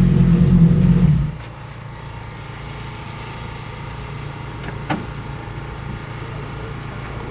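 Rally car engine running loud at steady revs, then dropping sharply about a second in to a much quieter, steady low hum.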